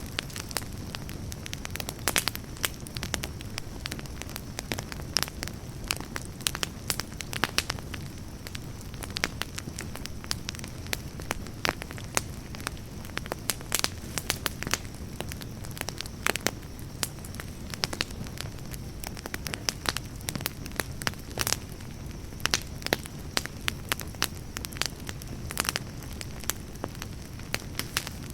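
Wood campfire burning with a steady low rumble and frequent sharp, irregular crackles and pops.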